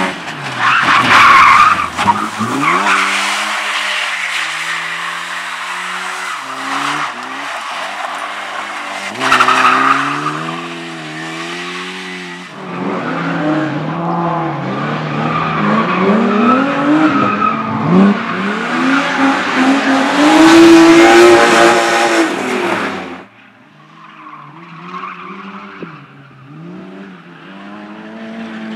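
Race car engine revving hard, its pitch rising and falling again and again with gear changes and lifts, while the tyres skid and squeal through the corners. The loud tyre noise cuts off suddenly about 23 seconds in, leaving the engine running fainter.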